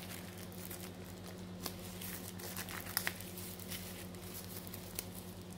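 Small plastic accessory pouch crinkling and crackling as fingers open it, in scattered sharp crackles over a steady low hum.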